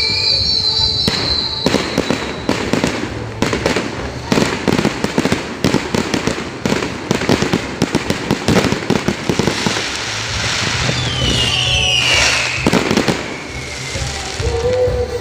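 Fireworks going off: a dense run of sharp crackling bangs from about a second in until about ten seconds, with a whistle falling in pitch at the start and another about twelve seconds in.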